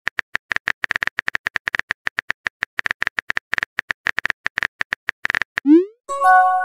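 Phone-keyboard typing sound effect: rapid clicks, about eight a second, then a short rising pop and a brief chime of several tones near the end as a message pops up.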